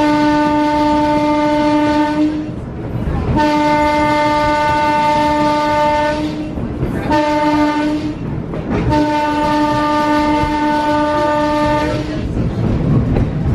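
The whistle of a 1923 interurban railway car sounding the level-crossing signal: two long blasts, a short one, then a long one, all on one steady pitch.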